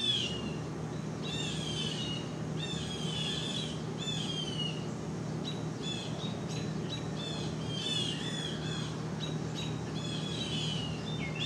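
A songbird singing outdoors, short slurred whistled phrases repeated every second or so, over a steady low hum.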